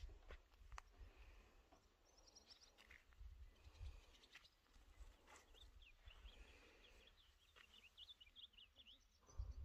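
Faint birdsong: a small bird twittering in quick high chirps, a few at first and then a busy run through the second half, over a low rumble.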